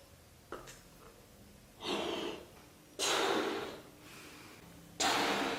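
Three sharp, breathy exhales from a person, each louder than the last.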